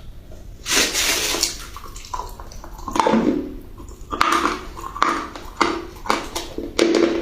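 Close-miked crunching and chewing of a lemon-flavoured treat. The first loud bite comes about a second in, another follows near three seconds, then quick crunchy chews about every half second toward the end.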